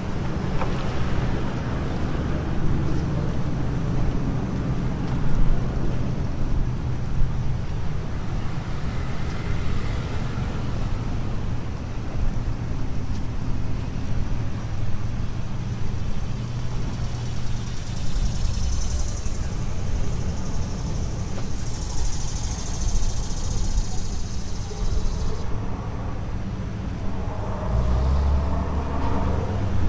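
Antique tractor engine running steadily, a low continuous drone.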